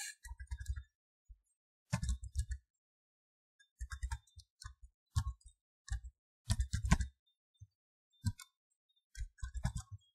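Computer keyboard keystrokes, typed in several short bursts of clicks with pauses between.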